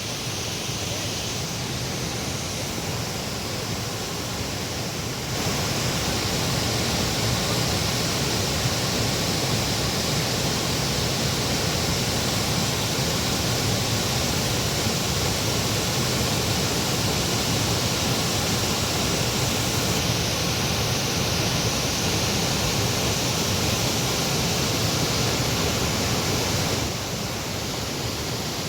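Steady rush of water falling at Khandadhar Waterfall, a tall plunge waterfall. It gets louder about five seconds in and drops back a little near the end.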